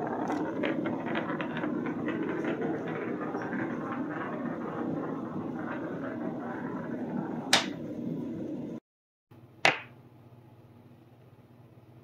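Glass marble rolling by itself across a sloping old hardwood plank floor, a steady rumble with many small clicks as it crosses the board seams, with a sharp knock about seven and a half seconds in. After a brief break there is one more sharp click, then only faint room tone.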